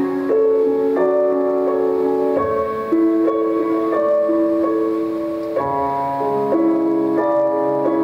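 Instrumental keyboard music, piano-like: a melody over held chords, the notes changing every half second or so.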